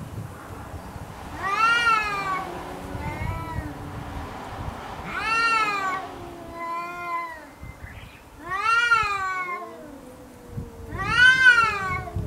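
Two cats, a black cat and a brown tabby, growling and yowling at each other in a close face-off: a low, wavering growl runs on under loud, rising-and-falling yowls that come about every three and a half seconds. This is a territorial threat display just short of a fight.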